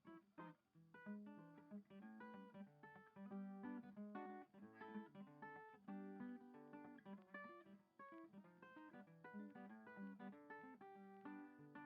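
Quiet background music: an acoustic guitar picking a steady run of plucked notes and chords.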